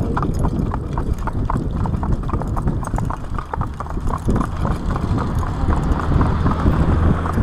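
Hooves of a pair of harnessed carriage horses clip-clopping on a tarmac road in a steady run of strikes, over a continuous low rumble.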